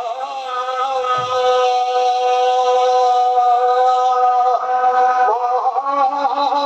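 A man's voice singing a devotional chant through a microphone. He holds one long steady note for about four seconds, then breaks into wavering ornaments near the end.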